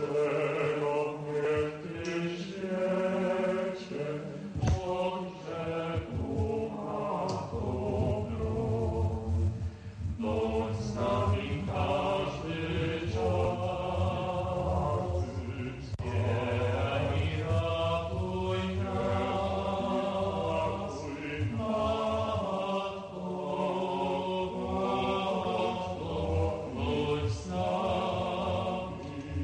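Background music: a choir chanting in long, slowly moving notes, sung in phrases a few seconds long.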